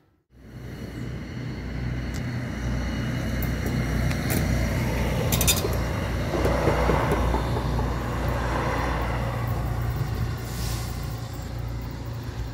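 A train passing over the level crossing: a loud, steady low rumble that swells to a peak about six seconds in and then eases, with a few sharp clicks partway through.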